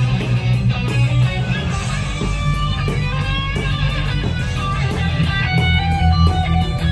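Live band playing loud amplified rock: electric guitar lines moving quickly over bass and drums.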